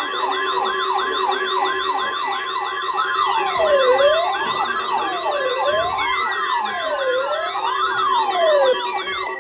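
Several NOAA weather radio receivers alarming at once: a steady single-pitch alert tone under electronic siren alerts. A fast warble runs about four times a second, a slower up-and-down wail joins it about three seconds in, and long falling glides come in near the end.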